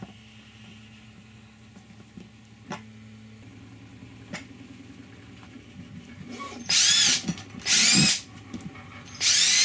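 Power drill run in short bursts, drilling screw holes through the thin plastic bottom of a storage box. There are two bursts of under a second each, each rising and falling in pitch, and a third starts near the end. Before the drilling there is a low steady hum with a few faint taps.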